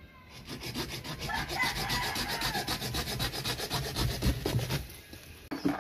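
Rapid, evenly paced scraping on wood for about four and a half seconds, then a single short knock near the end.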